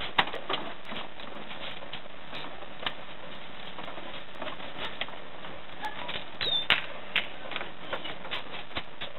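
Irregular light clicks and knocks over a steady hiss, with one brief high squeak about six and a half seconds in.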